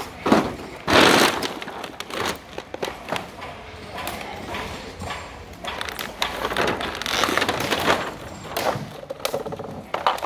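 Footsteps crunching and scuffing over burnt debris and loose strips of charred material, with uneven knocks and crackles as pieces shift underfoot.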